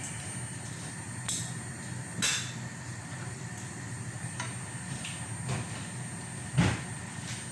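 Sliced onions sizzling in oil in a pot over a steady low rumble, with a few knocks of a wooden spatula against the pot, the loudest near the end.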